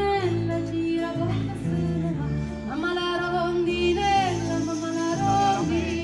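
Live folk music: a singer holding long notes with a wavering pitch over a diatonic button accordion, strummed acoustic guitar and double bass.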